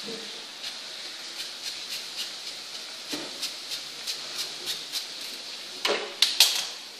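A hand-held trigger spray bottle misting water onto a mannequin head's hair in quick squirts, about three or four a second. Near the end come a few louder knocks and clatters as the bottle is handled and set down on the counter.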